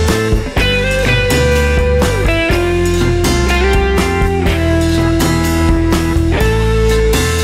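Rock music with a guitar melody of long held notes over bass and drums.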